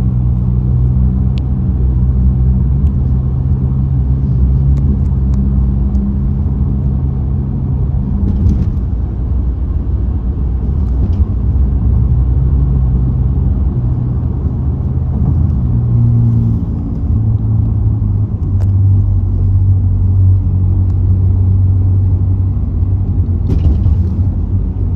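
Car driving at freeway speed, heard from inside the cabin: a steady, loud road-and-engine rumble with low humming tones that shift in pitch about a third of the way in and again past the middle.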